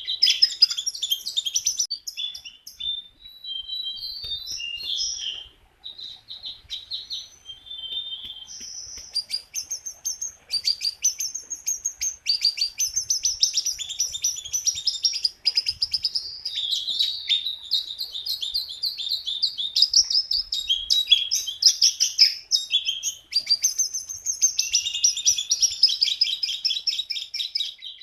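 A jongkangan songbird singing vigorously: fast, high-pitched chattering trills of rapidly repeated notes, with a looser run of short varied notes a few seconds in.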